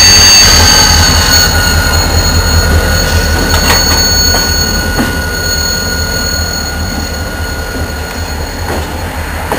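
Diesel locomotives and a flat car rolling past, the wheels squealing in steady high-pitched tones over a deep rumble. A few sharp knocks from the wheels come midway. The whole sound fades steadily as the train moves away.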